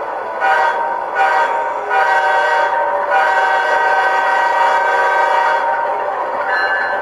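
Diesel locomotive horn sampled by an ESU LokSound decoder in a Kato C44-9W model locomotive, played through the model's small speaker: two short blasts, then a longer blast and a long blast, over the decoder's GE 7FDL-16 prime-mover sound.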